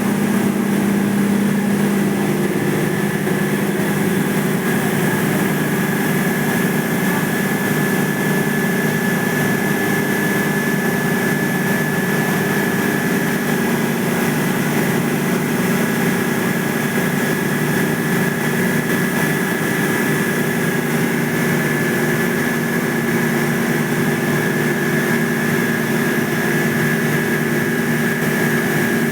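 Air-cooled condensing unit running steadily: an even machine hum with a constant high whine over fan noise.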